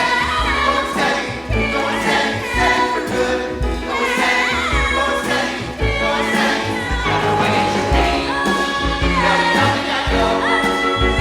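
A mixed vocal ensemble of men and women singing a Broadway show tune in close harmony, with piano accompaniment.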